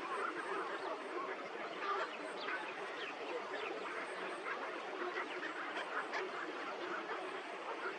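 A flock of birds chattering and calling together, many short overlapping calls without a break.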